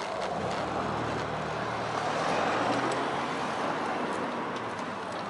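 A car passing close by on the road, its low engine hum lasting a few seconds, over a steady rush of road and air noise picked up from a moving bicycle.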